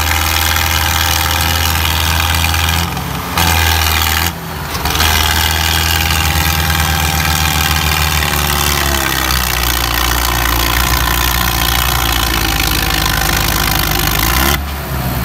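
Tractor diesel engines running hard under heavy load, pulling a soil-laden trolley stuck in soft ground out on a tow chain. The engine note drops briefly twice a few seconds in, then holds steady again.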